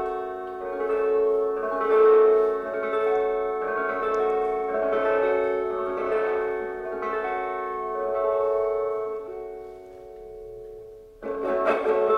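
Instrumental music: slow, sustained ringing chords that change every second or two and fade out, then a guitar comes in strumming loudly about a second before the end.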